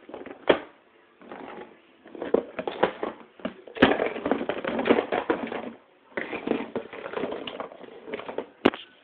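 Rustling, scraping and a few sharp taps of a phone being handled and moved around, with pauses between the bursts.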